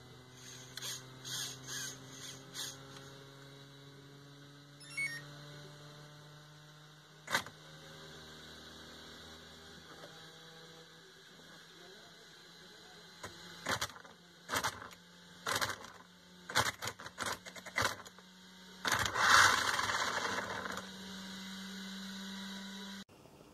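Brushless electric motor in a nitro-to-electric converted RC truck, driven by its speed controller, humming with a steady tone while it turns the wheels jerkily. The jerky rotation is the problem with the motor and speed controller. Scattered clicks and knocks come through, the hum steps up in pitch past the middle and cuts off near the end.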